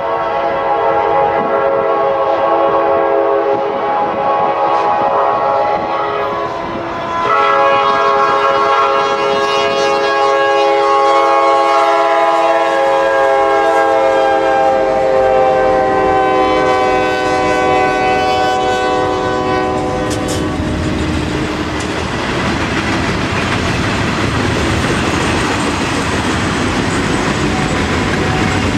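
Norfolk Southern freight locomotives' multi-chime air horn sounding two long blasts. The first breaks off about seven seconds in; the second is held about thirteen seconds and drops slightly in pitch as the lead engines pass. Then the horn stops and the freight cars roll by with steady wheel clatter.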